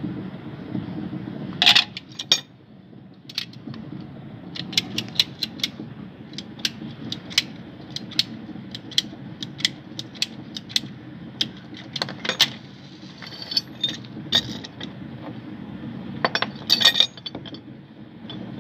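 Plastic pipe fittings and tools being handled and set down: many short, sharp clicks and clinks, with a few louder knocks, over a steady low hum.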